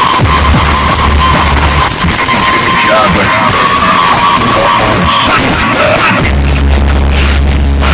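Loud music blasting from a paredão car sound system, heavy on the bass. The deep bass cuts out about two seconds in and comes back strongly about six seconds in.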